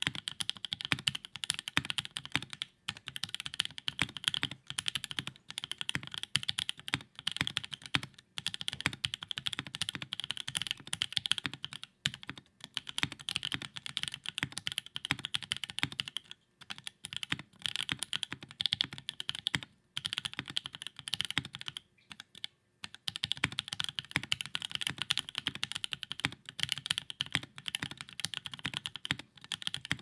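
Steady fast typing on a Savage65 custom mechanical keyboard fitted with lubed linear Cream-paca switches (Cream stems in Alpaca housings), an FR4 plate and GMK keycaps: a dense stream of keystrokes broken by a few brief pauses.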